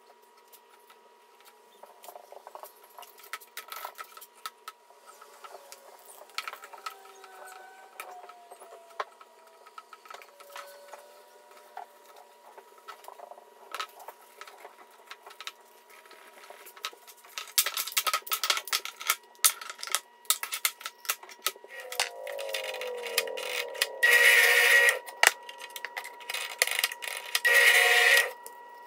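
Workshop handling sounds: clicks and knocks of wooden pieces and trigger bar clamps being ratcheted tight. Near the end a Skil benchtop drill press runs and bores into the hardwood board twice, each bore about a second long.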